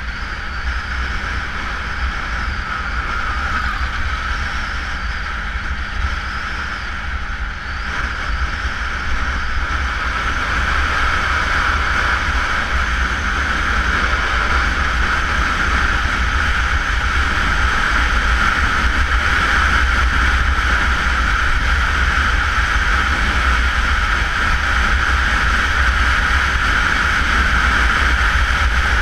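Honda CBR motorcycle cruising at highway speed, heard from a GoPro mounted on the bike: a steady rush of wind noise with low rumble over the engine's running. It grows gradually louder over the second half.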